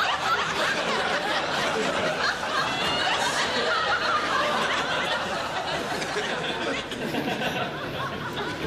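Live audience laughing, the laughter thinning out near the end.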